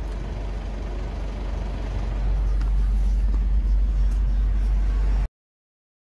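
Steady low engine and road rumble heard inside a delivery truck's cab in slow traffic. It cuts off suddenly about five seconds in.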